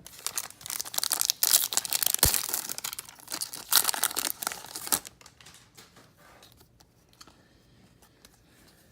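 A trading-card pack wrapper being torn open and crinkled for about five seconds, with sharp crackles. After that there is only faint rustling as the cards are handled.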